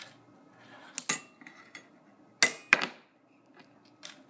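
A fingerboard clacking down and its trucks grinding along a fingerboard rail. There are sharp clacks about a second in and a louder pair around two and a half seconds in, with short scrapes between them.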